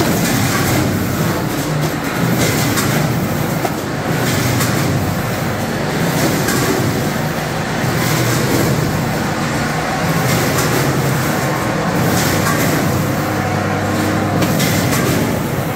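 Vertical form-fill-seal packaging machine running: a steady low mechanical hum with a clack every second or two as it cycles, forming, filling and sealing bags.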